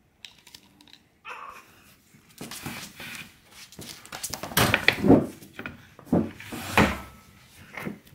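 A cat thrashing and scrabbling to break free of the towel it is wrapped in while it is held for a subcutaneous fluid injection. The sound is cloth rustling and scuffling with irregular thumps on the wooden floor, loudest about five and seven seconds in.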